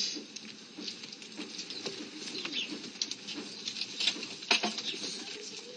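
Faint, scattered scuffling and small clicks, with one sharper click about four and a half seconds in.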